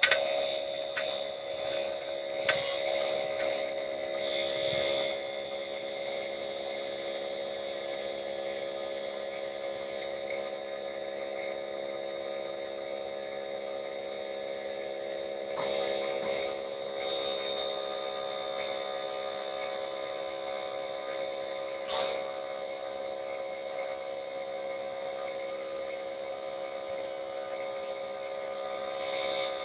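Small electric fan of a battery-powered bee smoker running with a steady hum. A few handling clicks and knocks, the loudest right at the start.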